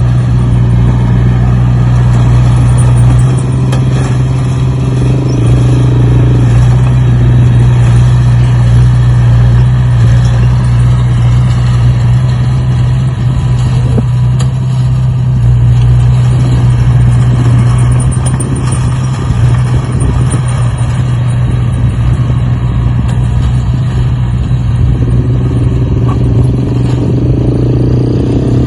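An engine running steadily with a deep, continuous hum, picking up somewhat near the end.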